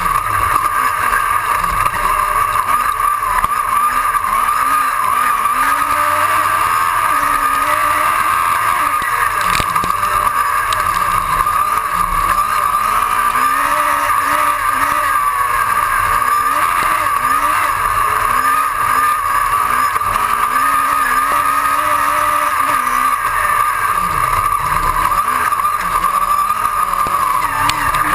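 Onboard sound of an autocross race car driven flat out on dirt: the engine's revs rise and fall again and again through gear changes and corners, over a steady high whine.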